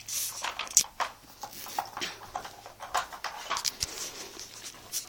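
A puppy nosing and pawing at a Nina Ottosson Dog Tornado, a plastic puzzle toy with rotating layers: irregular plastic clicks, knocks and rattles as it works at the compartments for food.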